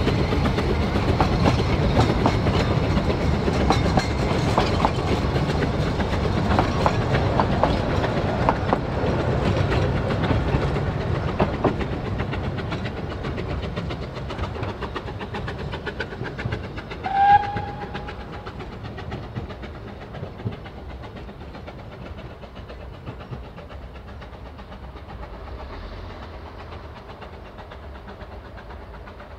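A 2 ft narrow-gauge Ffestiniog Railway train's carriages clatter over the rail joints as they pass and run off into the distance, the noise fading away. About halfway through, the locomotive gives one short whistle.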